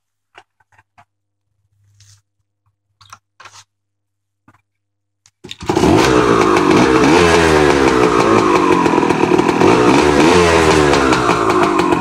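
A few faint clicks, then about five and a half seconds in the 1990 Kawasaki KM100's single-cylinder two-stroke engine cuts in loud, running and revving up and down through an exhaust with its baffles pulled out.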